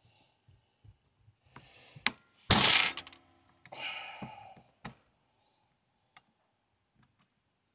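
Metal chainsaw engine parts and tools clinking and scraping on a workbench during disassembly. There is one loud metallic clatter about two and a half seconds in, a scraping rustle a second later, and scattered small clicks.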